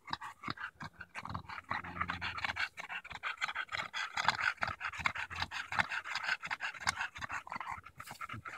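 English bulldog panting heavily in quick, rhythmic breaths.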